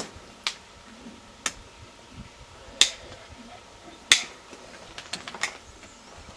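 Hoof nippers cutting through the flared hoof wall: about seven sharp snaps at irregular intervals, the loudest a little under three and about four seconds in.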